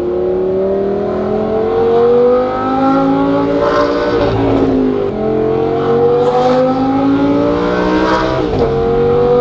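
Audi R8 GT's 5.2-litre V10, breathing through equal-length headers and a titanium exhaust, heard from inside the cabin under hard acceleration. The revs climb steadily and drop at an upshift about four seconds in, then climb again and drop at another shift near the end, with a whip crack at the shifts.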